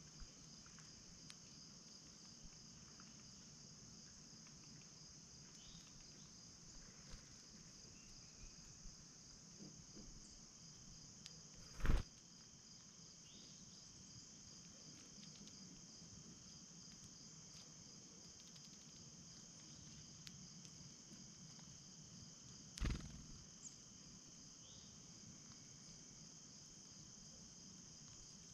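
Steady high-pitched chorus of insects, with two sharp knocks about eleven seconds apart, the first a little before the middle.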